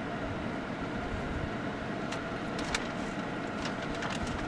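Steady cabin noise of a car's air-conditioning blower with the engine idling, heard inside the car, with a few light clicks.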